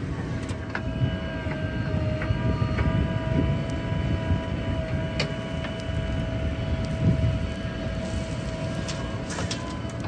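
JCB 3DX backhoe loader's diesel engine working under load as the backhoe digs red soil and swings it over to dump into a tractor trolley. A low rumble runs under a steady high whine, with scattered knocks and scrapes of the bucket in the soil, loudest about seven seconds in.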